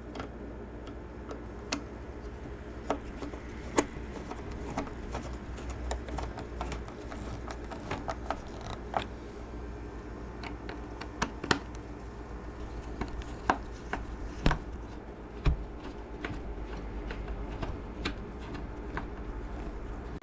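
Scattered clicks and knocks of gumball machine parts being handled and fitted back together by hand, over a steady low hum.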